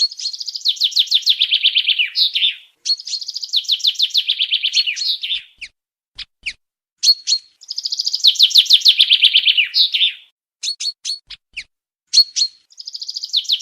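Common chaffinch singing: three full songs and a fourth starting near the end, each a falling run of quick trilled notes that ends in a short flourish. Short sharp call notes fall in the gaps between songs.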